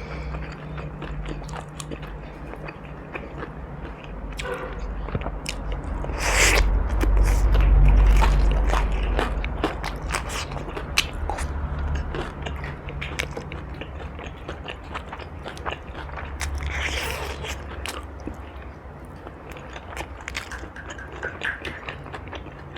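Close-up mouth sounds of eating: biting and chewing crunchy food, with many sharp crunches and wet chewing clicks.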